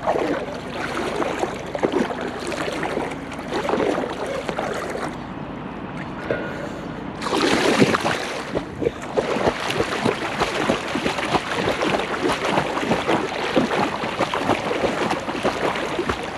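River water sloshing, then a big splash about seven seconds in as a dog goes into the water, followed by steady churning splashes as it swims and paddles.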